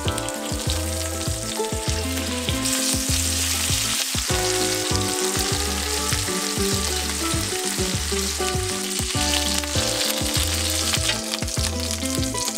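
Skinless chicken thighs sizzling in olive oil in a stainless steel frying pan as they are turned with tongs, with background music and a steady bass beat underneath.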